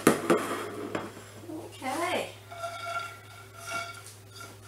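Plates set down on a countertop with a clatter, then a metal frying pan of toasted pecans scraped across an electric stovetop, the pan ringing steadily as it slides.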